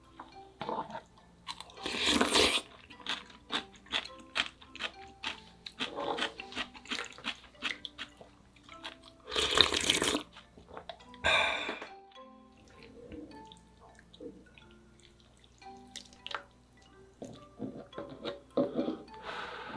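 Close-up eating sounds of spicy ramyeon noodles with soft tofu: three loud slurps about half a second each, near 2 s, near 10 s and just after, with wet chewing and small clicks between. Soft background music with light mallet-like tones.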